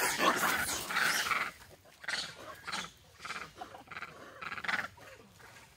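Macaques giving harsh, noisy calls: a loud run of calls in the first second and a half, then shorter, fainter calls at intervals.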